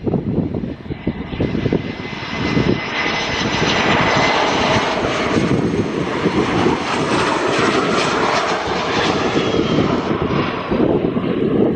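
Jet airliner's engines as it passes low by the runway, the noise building, holding with a thin whine, then fading. Gusts of wind buffet the microphone at the start and end.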